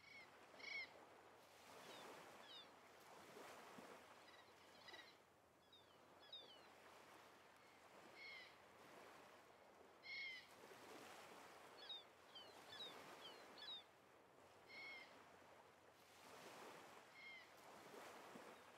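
Faint synthetic forest ambience from the AnTuTu GPU benchmark's 3D nature scene: a soft rushing wash that swells and fades, with short bird calls every couple of seconds and clusters of quick high chirps.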